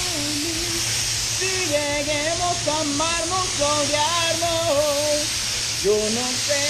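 A man singing a tune over the steady air hiss of a MATCO MTHVLP14 HVLP spray gun spraying paint.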